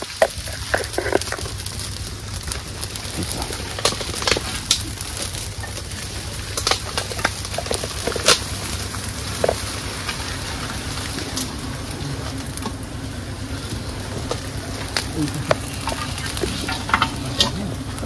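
A smouldering smoke torch of leaves and twigs crackling and hissing. Its steady hiss is broken by irregular sharp pops as it is held close to a wild honeybee comb to smoke the bees off before the comb is cut.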